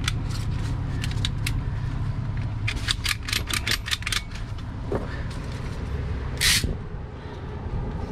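Ratchet strap being worked by hand: a quick run of about eight sharp clicks from the ratchet buckle near the middle, then a short swish of strap webbing being pulled. This is set over the steady low hum of an idling truck diesel engine.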